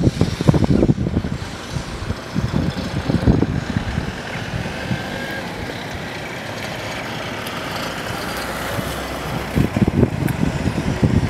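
Outdoor noise of a vehicle engine running steadily, with wind gusting on the microphone near the start and again near the end.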